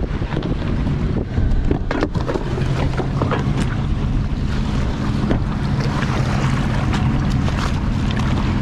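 A boat's outboard motor running steadily under way, with heavy wind buffeting the microphone.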